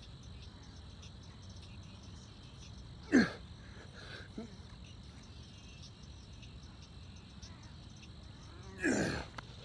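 Crickets chirping steadily in the background, with two short grunting exhales falling in pitch from a man doing push-ups, about three seconds in and near the end.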